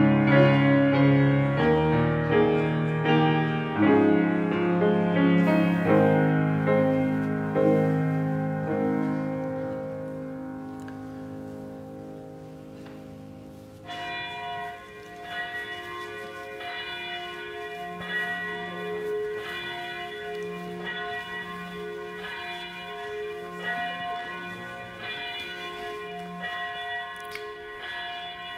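Piano chords of a church prelude ring out and fade away. About halfway through, a church bell starts tolling with slow, regular strokes that sound before the service's welcome.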